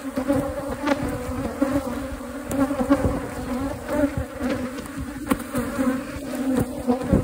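Mass of honeybees buzzing as a steady, dense hum around an opened colony, with scattered knocks and clicks of handling.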